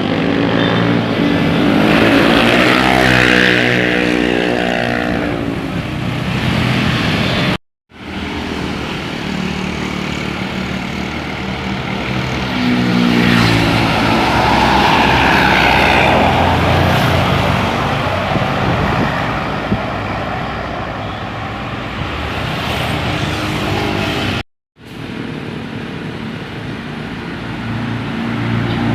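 Diesel engines of large tour buses running as they drive past, their pitch shifting as they pass, over road and traffic noise. The sound drops out completely twice for a moment at edits.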